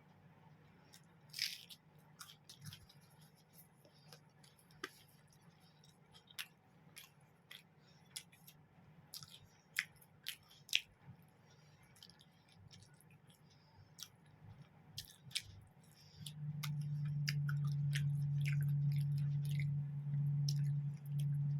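Eating sounds of someone chewing mutton curry and roti: scattered wet mouth clicks and small crunches. About 16 seconds in, a steady low hum starts abruptly and becomes the loudest sound.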